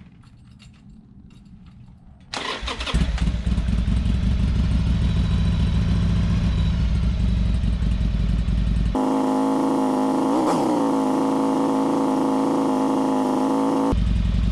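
Harley-Davidson Sportster's air-cooled V-twin engine, cranked by the electric starter and catching about two seconds in, then idling steadily on the choke in a cold start. A couple of faint clicks come before the start, and the pitch dips and rises briefly about ten seconds in.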